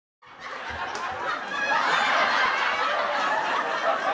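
Many people's voices chattering and laughing together, growing louder over the first couple of seconds.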